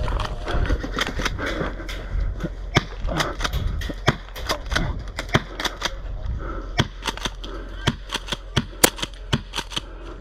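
Airsoft guns firing: many sharp pops at an uneven pace, some single and some in quick strings.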